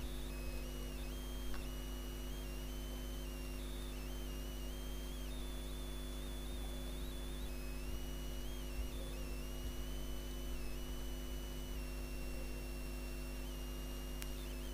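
Steady low electrical hum, with faint high whining tones that step up and down in pitch, and one faint click about a second and a half in.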